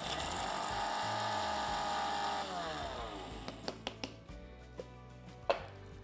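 Electric mixer grinder with a small steel jar running at full speed, grinding crushed dried pomegranate seeds (anardana) into a fine powder, then switched off about two and a half seconds in and winding down with a falling whine. A few light knocks follow as the jar is handled.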